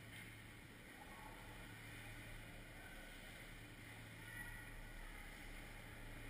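Faint, steady ice-rink background: a constant low hum under an even hiss, with only scattered faint distant noises.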